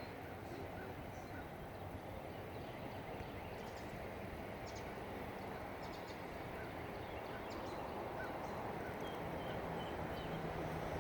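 Canada geese calling softly over steady background noise, with a few faint short high chirps, about four in a row near the end.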